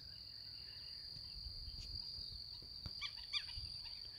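A steady, high-pitched insect trill drones on without a break, with a few short chirps about three seconds in.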